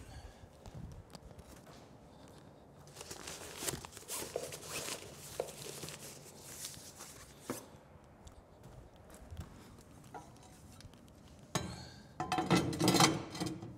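Rustling of a fabric car cover being pulled and smoothed over a car, with footsteps and scattered light knocks and clicks. Near the end comes a louder, busier burst of handling noise.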